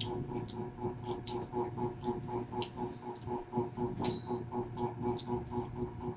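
Eating sounds: crispy fried chicken being torn by hand and chewed, soft irregular clicks and crunches, over a steady hum that pulses about four to five times a second.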